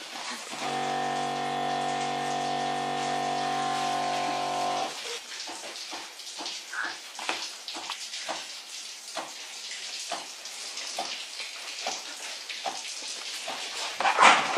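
Electric pump of a chicken-injection rig humming steadily while the meat is pumped with liquid. It drops out for a moment at the start and stops abruptly about five seconds in. Then come irregular small clicks and liquid splashes and drips, and a loud burst of rustling near the end.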